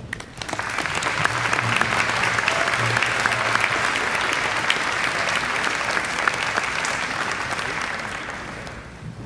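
Audience applauding, rising quickly in the first second and dying away near the end.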